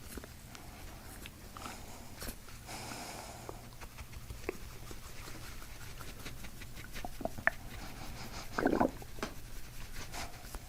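Stomach gurgles from a patient's abdomen while it is pressed by hand, among small clicks and rustles of hand and skin contact, with a louder gurgle near the end.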